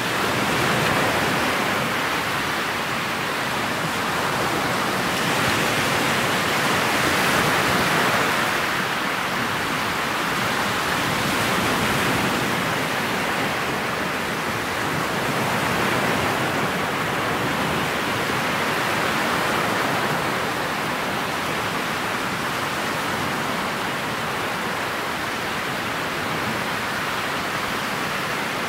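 Steady rushing of wind and water as a motorboat runs through choppy, wind-driven waves. The noise swells and eases every few seconds, with no separate engine note standing out.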